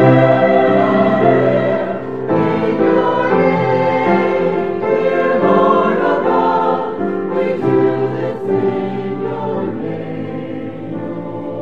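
A choir singing in harmony, sustained chords moving every second or so.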